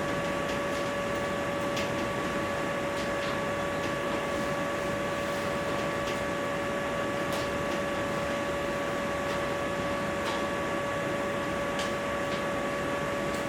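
Steady hiss of lecture-room background noise with a constant whine of a few high tones, and faint scattered ticks of writing on a board.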